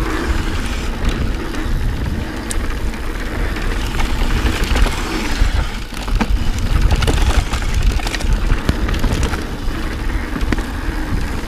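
Santa Cruz Hightower plus mountain bike descending a dirt singletrack fast: a steady rush of wind and tyre rumble, with scattered clicks and rattles from the bike over roots and bumps.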